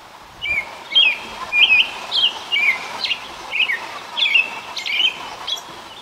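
American robin singing: a run of short, clear whistled phrases with quick up-and-down glides, about two a second, starting about half a second in.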